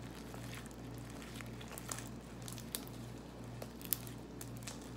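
Homemade glue-and-detergent slime being squeezed and kneaded by hand, squishing softly with scattered small clicks and pops as it stretches and folds.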